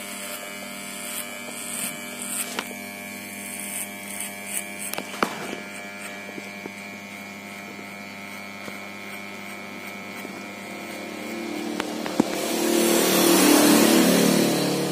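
Electric hair clippers running with a steady buzz while cutting up the nape, blade lever closed with no guard fitted, with a few small clicks in the first five seconds. Near the end a louder rushing sound swells and fades.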